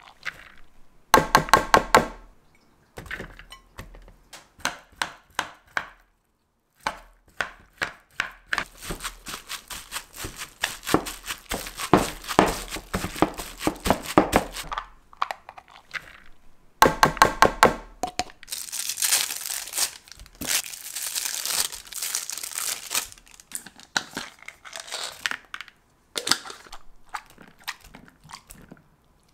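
Boiled potato and egg being mashed in a glass bowl, with many quick knocks and scrapes of the masher against the glass. There are also two short bursts of rapid, even clicking and a stretch of rustling.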